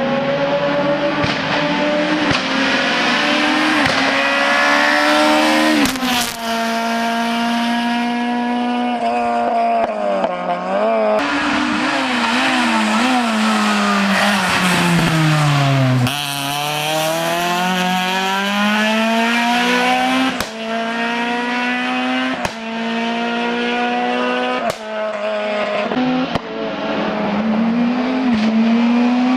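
Hill-climb race car's engine at full throttle. The note climbs through each gear and drops at every upshift. Around the middle the revs fall away steadily, then pick up sharply and climb again through a quick run of gear changes.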